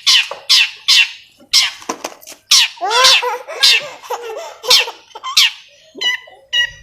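Long-tailed shrike (cendet) giving a run of loud, harsh calls, about two a second, each sweeping sharply down in pitch. A few softer, shorter notes come near the end.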